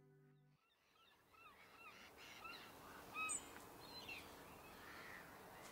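The last of the music stops, a moment of silence follows, and faint outdoor ambience comes up with scattered short bird calls; one call about three seconds in is louder and higher than the rest.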